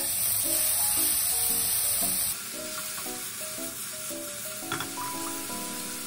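Minced pork and chopped French beans sizzling in a frying pan while being stirred with a silicone spatula. The sizzle gets quieter about two seconds in.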